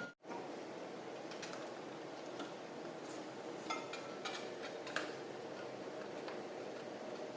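Steady faint hum with scattered light clicks and ticks at irregular intervals, a second or so apart.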